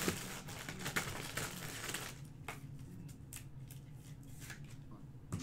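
Trading cards and packaging handled on a table: a dense run of light rustles and clicks for about the first two seconds, then scattered single clicks and taps.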